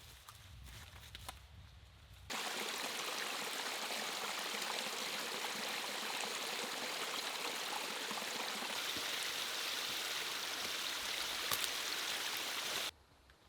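Running water of a small stream, a steady even rush that cuts in about two seconds in and cuts out abruptly just before the end. Before it there is a faint low rumble.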